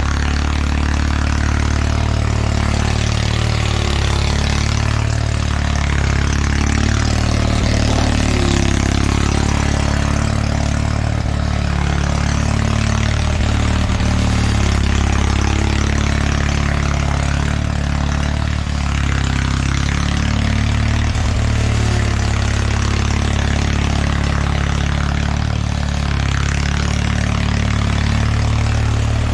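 1979 Bolens HT-23 garden tractor's 58 cu in Kohler K582 opposed-twin (boxer) engine running steadily.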